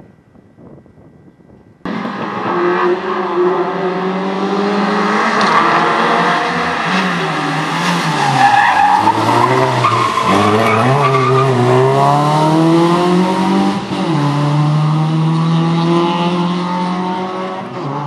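Racing car engine under hard acceleration, cutting in suddenly about two seconds in. The note climbs through the revs, drops away about halfway through, climbs again and holds high near the end.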